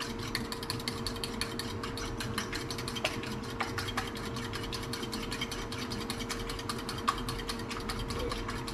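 Eggs being beaten by hand in a small ceramic bowl, the utensil clicking against the bowl in a rapid, even rhythm of several strokes a second.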